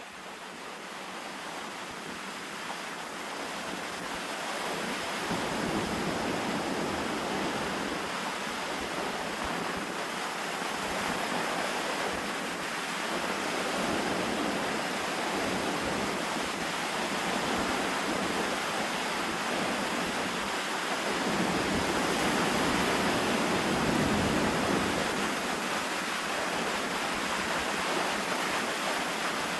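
Strong wind buffeting the microphone over lake waves rushing onto a beach: a steady rushing noise with low rumbling gusts about 5 seconds in, around 12 seconds, and strongest between about 21 and 25 seconds.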